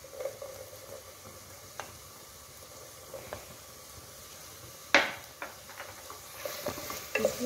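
Chopped vegetables frying in oil with a steady low sizzle as diced capsicum is tipped into the pan. A single sharp knock comes about five seconds in, and a wooden spatula stirs and scrapes the pan near the end.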